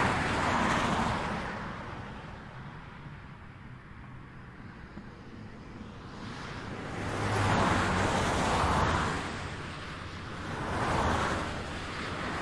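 Highway traffic: vehicles passing one at a time, each a swell of tyre and engine noise that rises and fades. One is passing by as it starts. After a quieter lull, a longer, louder pass with a deeper engine note comes about midway, another follows a few seconds later, and a third begins at the end.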